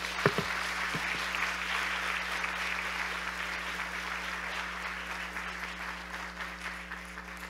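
Audience applauding, the clapping slowly dying down toward the end, with one sharp thump about a quarter second in.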